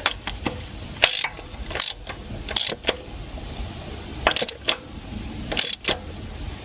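Scattered sharp metallic clicks and clinks, about six over a few seconds, from hand tools and parts being handled while a new oil pressure switch is fitted on the engine.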